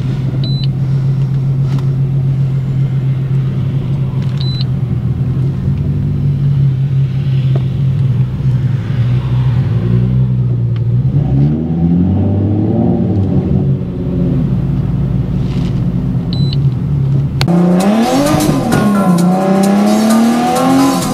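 Nissan 370Z's 3.7-litre V6 through a Tomei exhaust, heard from inside the cabin: a steady cruising drone for the first half, then rising and falling in pitch as the car accelerates and lifts off. Near the end the sound cuts abruptly to a louder engine revving up and down.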